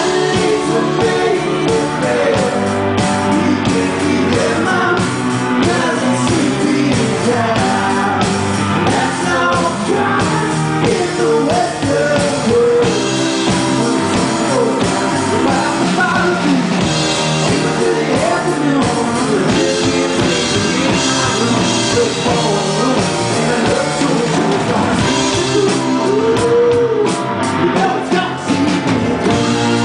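Live rock band playing a song: a male lead vocal over keyboard, electric guitar and drum kit.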